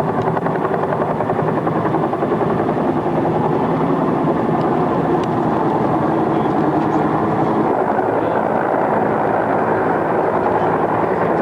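JUH-1H Huey helicopters (UH-1H Hueys made up as Hinds) flying close by, with a steady, rapid rotor beat and turbine noise.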